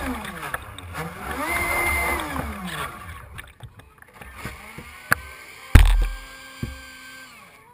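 Small electric motor and air propeller of a radio-controlled airboat whining, its pitch swinging up and down with the throttle, then holding a fainter steady pitch. A sudden loud low thump about six seconds in.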